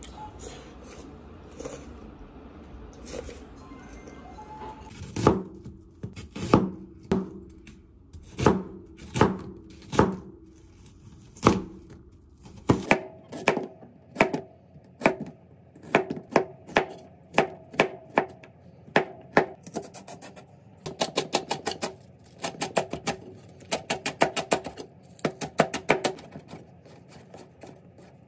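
Kitchen knife cutting vegetables on a cutting board: slow single strokes through squash starting about five seconds in, then quicker runs of rapid chopping through onion, leek and shiitake mushrooms. Soft background music underneath.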